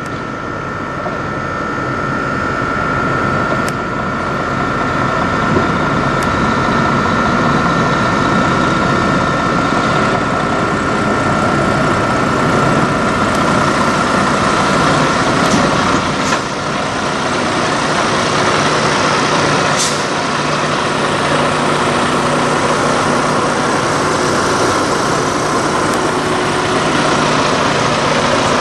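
Western Star semi-truck car hauler rolling in slowly with its diesel engine running, giving a few short hisses of air near the middle as it brakes to a stop. It then settles into a steady idle.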